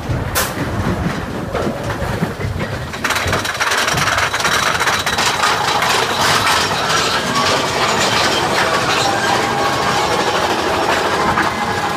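Big Thunder Mountain Railroad mine-train roller coaster running along its track: a steady rattle and clatter of the cars and wheels, with a single sharp click near the start, growing louder from about three seconds in.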